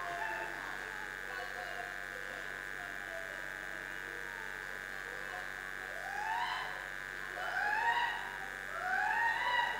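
A steady high hum under faint voices; from about six seconds in, a high voice slides upward three times in long rising notes.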